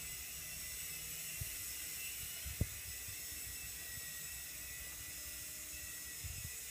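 Faint, steady whir of a Blade CX Scout, a small electric coaxial RC helicopter, in flight, with a single thump about two and a half seconds in.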